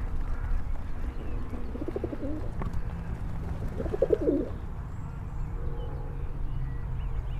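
Feral pigeons cooing twice, about two seconds in and again about four seconds in, over a low background rumble.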